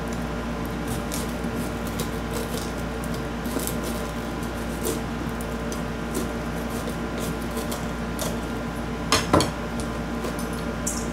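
Chef's knife cutting into a green bell pepper on a plastic cutting board, with scattered crisp cuts and crunches. Near the end come two sharp knocks as the knife is set down on the board.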